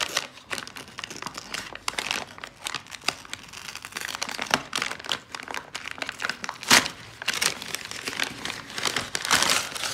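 Brown paper mailer envelope crinkling and tearing as it is ripped open by hand, in irregular rustles and crackles. There is one sharp loud rip about two-thirds of the way through and a louder stretch of tearing near the end.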